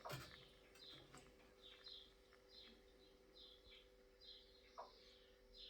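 Faint, repeated short chirps, each falling in pitch, about eight of them at a steady pace of roughly one every 0.7 seconds, over a quiet steady hum.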